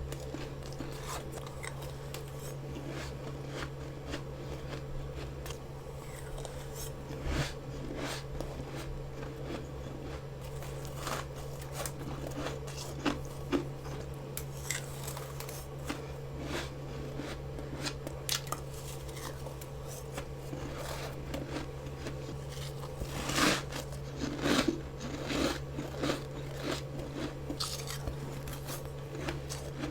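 Bites and chewing crunches of fresh freezer frost, grown with a humidifier in a mini freezer, in scattered crisp crackles. The loudest bites come about three-quarters of the way in. A steady low hum runs underneath.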